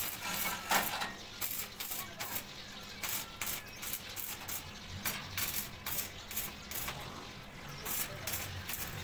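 Electric arc welding on a steel grill frame: an uneven crackle of quick pops and sputters over a steady hiss as the arc burns.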